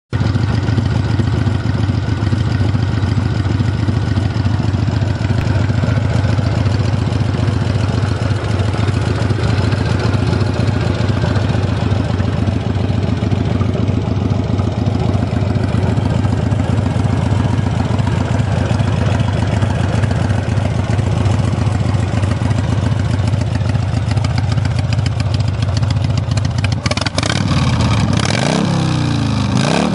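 1995 Harley-Davidson Heritage Softail Classic's 1340 cc Evolution V-twin idling steadily through its Harley-Davidson exhaust, then revved up and down a few times near the end.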